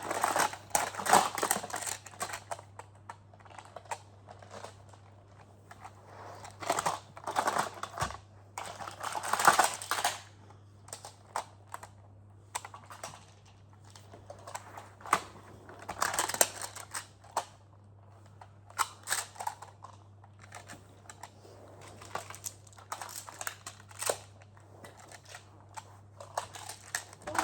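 Plastic magnetic building tiles clicking and clattering as they are picked out of a pile, handled and snapped together, in irregular bursts with short pauses between.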